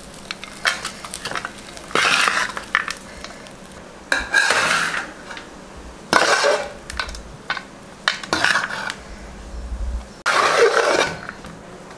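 A metal ladle stirs and turns cooked tamarind rice with peanuts in a pressure cooker pot, scraping and clinking against the metal sides. There are about five scraping strokes, roughly two seconds apart, with light clicks between them.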